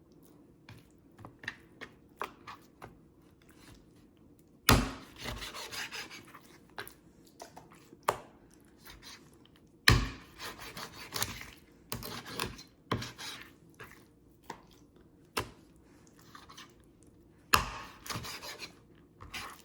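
Knife cutting chicken thighs in half on a cutting board: three sharp knocks of the blade hitting the board a few seconds apart, each followed by rubbing and shifting of the raw meat, with small clicks and taps between.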